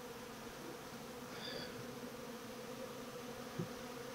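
Honeybees humming steadily around an open hive full of bees, with one light knock about three and a half seconds in.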